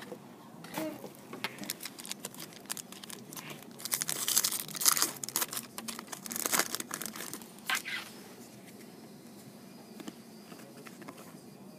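A foil-wrapped football card pack being torn open and crinkled, the crackling loudest about four to eight seconds in. Near the end come the softer ticks and slides of the cards being handled.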